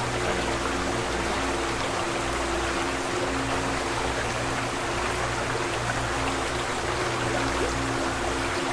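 Calm background music with held low chords over a steady rush of running water.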